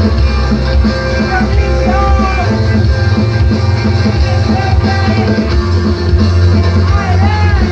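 Loud, dense screamo/emoviolence music: a hardcore band with electric guitar playing.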